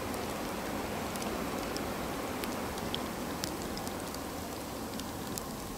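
Freezing rain falling: a steady hiss with scattered light, sharp ticks of drops striking.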